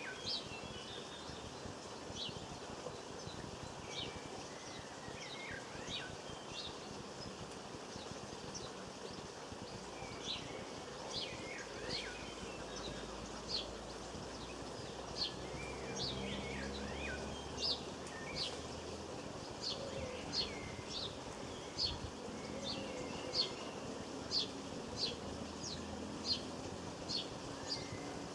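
Small garden birds calling, with scattered chirps at first. About halfway through the calls settle into a steady run of short, high chip notes, roughly one and a half a second.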